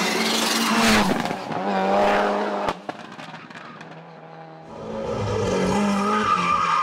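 Racing car engine at full throttle, its note rising and dropping as it revs through gear changes, with a single sharp crack about two and a half seconds in. The engine then drops away for a couple of seconds before engine sound builds again near the end.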